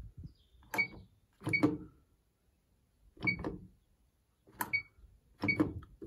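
Electrolux Quickwash commercial washing machine's control panel giving five short beeps, each with a click, as its selector knob is turned and pressed, spaced unevenly about a second apart.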